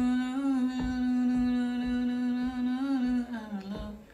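A man humming one long held note that wavers briefly twice, then dips lower and stops near the end.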